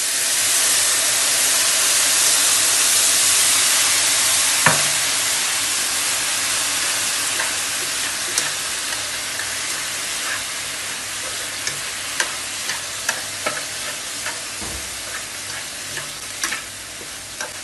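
Freshly added fish-sauce glaze sizzling in a hot frying pan of crisp-fried dried fish strips, loud at first and slowly dying down. Wooden chopsticks toss the fish, with scattered light clicks against the pan, more of them in the second half.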